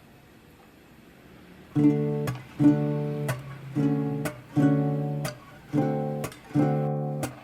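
Background music: after a quiet first couple of seconds, an acoustic guitar starts strumming chords in a steady rhythm, about one strum a second.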